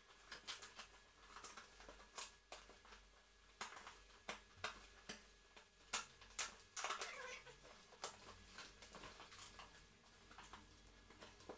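Scissors snipping and brown packing tape and cardboard crackling as a taped parcel is cut open, heard as irregular faint clicks and crinkles with a short rustle about seven seconds in.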